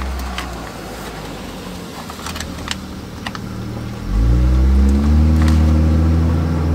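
A low engine hum fades over the first couple of seconds, with a few light clicks. About four seconds in, a vehicle engine revs up, its pitch rising, then settles into a loud steady run.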